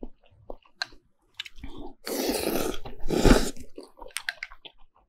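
Beef noodle soup being eaten: two long slurps of noodles about two seconds in, with small chewing and mouth clicks before and after.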